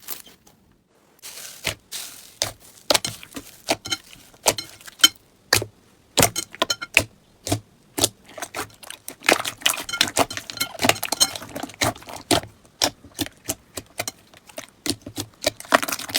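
Slime being squeezed and poked by hand, making irregular sharp clicks and pops, with a busier crackling stretch in the middle.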